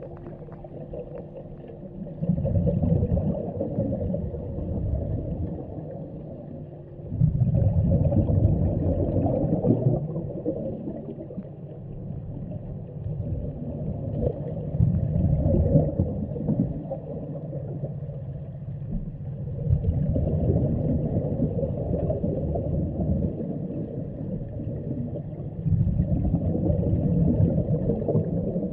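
Underwater recording: a scuba diver's exhaled bubbles rumbling and gurgling past the camera in bursts of a few seconds, one every five or six seconds with each breath, over a faint steady hum.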